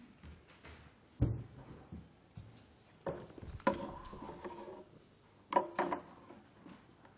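Handling noise at a wooden lectern as it is set up: a thump about a second in, then rubbing, squeaking and knocking, with two sharp knocks near the end.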